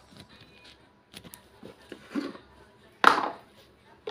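Kitchen utensils knocking and clattering against a pan and the range: a few light knocks, then one sharp, louder clack about three seconds in.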